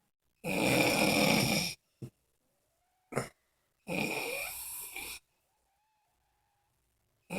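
Snoring: two long snores about a second and a half each, roughly three seconds apart, with a brief snort between them.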